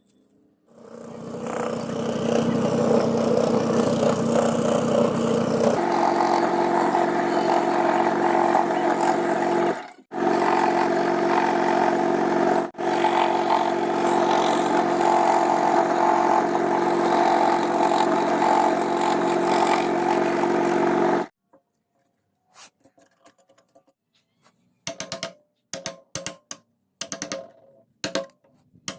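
Electric scroll saw running steadily as it cuts wood, with a steady motor hum and blade buzz; it stops abruptly about two-thirds of the way through. Scattered short knocks follow.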